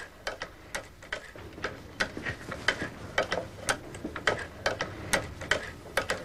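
Clicking of a cobbler's leather-sewing machine's cam mechanism at work, about three sharp clicks a second in an uneven rhythm.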